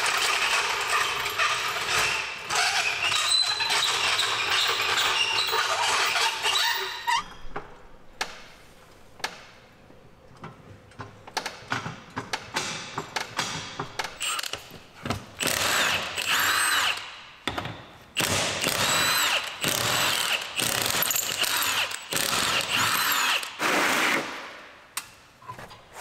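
Power tool running in long bursts, one lasting about seven seconds at the start and several more in the second half with a whine that rises and falls, as the lug nuts come off a John Deere Gator's flat rear wheel. Clicks and knocks of hand tools come in between.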